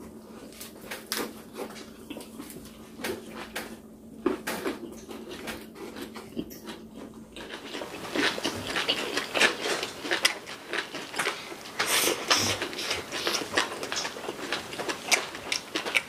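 Close-miked eating sounds: chewing of bean-sprout bulgogi, with wet mouth noises and light clicks of utensils against dishes. The chewing and clicking become denser and louder about halfway through.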